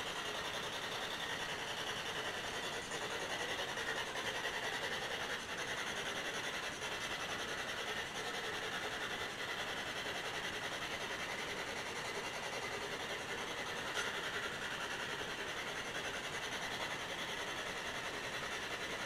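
Steady hissing background noise with no distinct events, and one faint click about fourteen seconds in.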